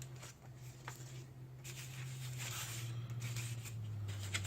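Soft rustling and crinkling of food-kit packaging being handled, with a few faint clicks, over a steady low hum.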